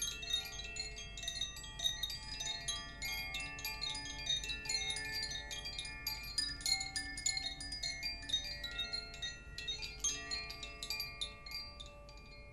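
Wind chimes jangling in a dense, continuous shimmer of many quick strikes and long-ringing high tones, thinning out and fading away near the end.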